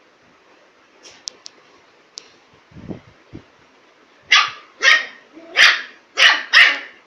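A puppy barking five times in quick succession, about half a second apart, starting about four seconds in; a few faint clicks and low thumps come before the barks.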